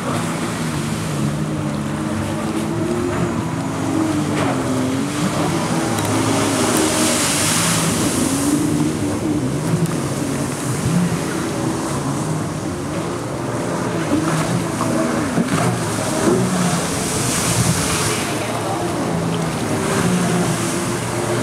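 Jet ski engine revving up and down as the craft carves and spins in tight turns, with the rush of water and spray over it. The spray hiss surges twice, about a third of the way in and again near the end.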